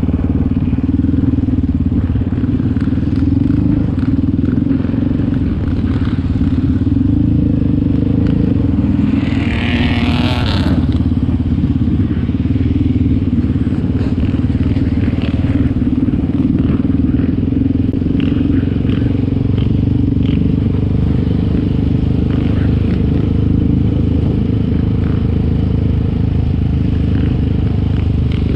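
Yamaha Raptor 700 quad's single-cylinder four-stroke engine running steadily under way on a dirt track. A brief higher-pitched rush about ten seconds in.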